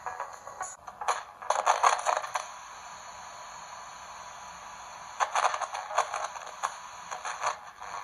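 Pocket FM radio's small speaker giving off static hiss, broken by two spells of crackling and clicking, about a second in and again past the middle. The static comes while the receiver is left with no signal from the home-built FM transmitter as it is disconnected and reconnected.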